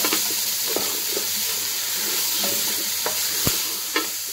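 Beef and tomatoes frying in hot oil in a pan with a steady sizzle, a spatula scraping and clicking against the pan as they are stirred. A sharper knock comes about three and a half seconds in.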